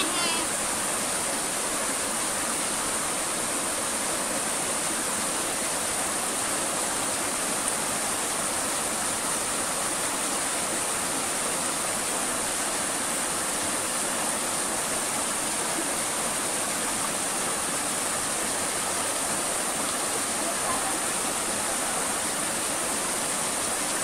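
River water running over rocks: a steady, unbroken rush of flowing water.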